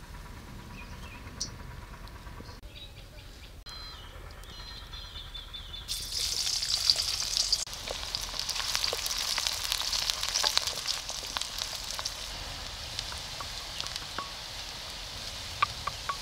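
Sliced onions frying in hot oil in a kadhai over a wood fire: after a quieter start, a loud sizzle begins suddenly about six seconds in as the onions hit the oil, full of small crackles, then settles into steady frying while they are stirred, easing toward the end.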